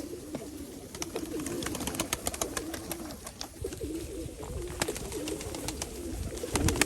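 Many Nikolaev pigeons cooing together in a loft, a continuous warbling murmur, with scattered sharp clicks and taps from the birds moving about.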